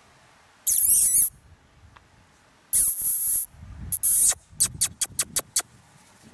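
Rubber squeaky toy squeaked as two Jack Russell terrier puppies chew and tug at it: three long high-pitched squeaks, the first about a second in, then a quick run of about six short squeaks.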